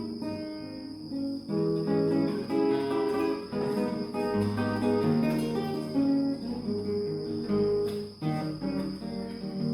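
Spanish guitar played solo, plucked melody notes mixed with chords, over a steady high-pitched insect chirring.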